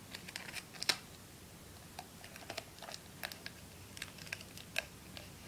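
Hands handling cardboard tubes and sticky tape: light, irregular clicks and taps, a few a second, with a sharper tap about a second in.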